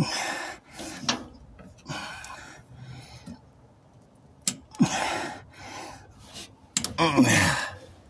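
A man breathing hard and grunting with effort in short bursts, two of them dropping in pitch like groans. A few sharp clicks come from his screwdriver and the small plastic clip he is forcing into place on the fuel pump.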